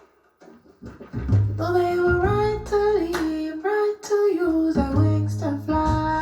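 Song playing through an audio system under test: a sung melody over guitar and bass, coming in after a near-silent second at the start.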